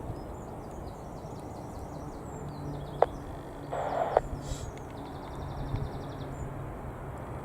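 Outdoor ambience with a low wind rumble and small birds chirping in quick runs of high notes. There is a sharp click about three seconds in and a short louder burst just after four seconds.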